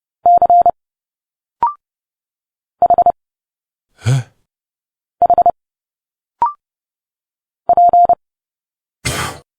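Morse code sent at 30 words per minute as a steady, even-pitched beep: four quick letters, each made of a few fast dots and dashes. After each letter comes a short spoken speech sound, a hiss or a clipped vowel or consonant, so code and spoken sound alternate about every second and a quarter.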